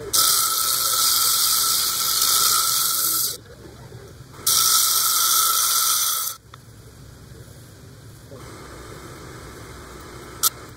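Azeztulite stone pressed against the spinning disc of a lapidary flat lap, grinding with a loud, high hissing squeal twice: about three seconds, then about two seconds. Between and after the two grinds the lap runs much more quietly, and a short click comes near the end.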